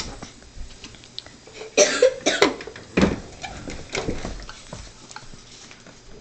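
A person coughing in short, sudden bursts: two close together about two seconds in, another about three seconds in, and fainter ones after.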